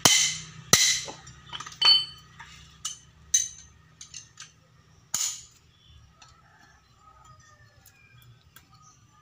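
Sharp metallic clinks and knocks of hand tools and loosened metal parts while a part is unbolted from a Toyota Kijang Super engine. There are about six loud strikes in the first five seconds, then only faint ticks.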